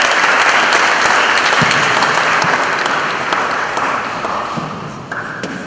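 Audience applauding, starting loud and dying away near the end.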